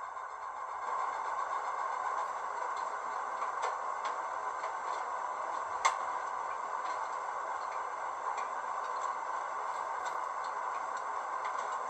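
Recorded diesel locomotive engine sound played through an HO-scale model's small onboard speaker by its DCC sound decoder, running steadily and getting a little louder about a second in. A single sharp click comes near the middle.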